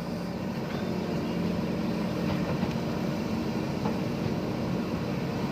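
JCB backhoe loader's diesel engine running steadily under work, a continuous low hum.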